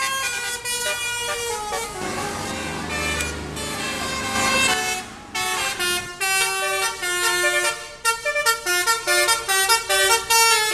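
Bus basuri telolet horn: a set of electrically driven trumpet horns run by a melody module, playing a tune in loud, stepping horn notes with a couple of brief breaks.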